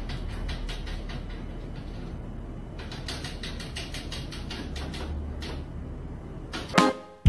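Rapid scrabbling clicks of a cat's claws against the plastic casing of a wall-mounted air conditioner, over a low steady hum. A short burst of music comes in near the end.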